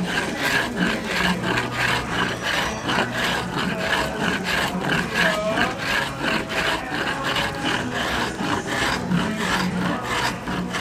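Wooden hand plane scraped in quick repeated strokes across a hard slab of peanut brittle, shaving it into peanut powder with a rasping, rubbing sound.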